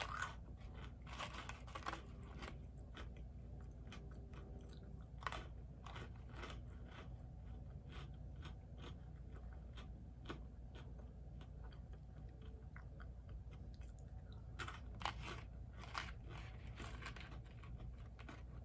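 A person chewing and crunching food at a mukbang eating-sounds microphone, with irregular crisp crunches and a few louder bites.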